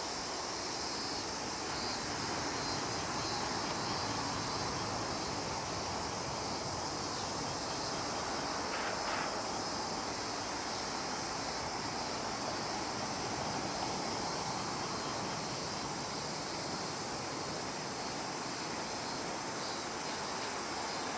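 Steady, even outdoor rushing noise with no rise or fall in level, in which no single engine note stands out.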